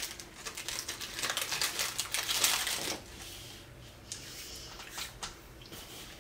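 Crinkly snack wrapper being handled and opened, a dense crackling rustle that is loudest for the first three seconds and then dies down to a few scattered crackles.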